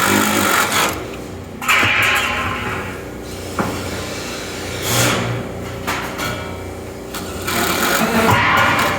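An engine running steadily, with several loud bursts of rushing mechanical noise over it.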